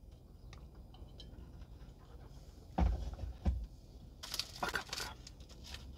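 Two dull low thumps about half a second apart a little before halfway, followed by a run of crisp rustling and clicking noises.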